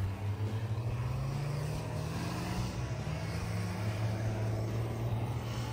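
Nissan Patrol with a swapped-in BMW M57 straight-six turbodiesel revving hard, its pitch climbing over the first couple of seconds and then holding high.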